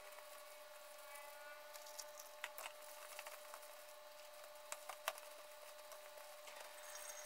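Faint squelching and a few short soft clicks of plastic-gloved hands mixing and squeezing chili-paste-coated cabbage in a plastic basin, over a steady faint hum.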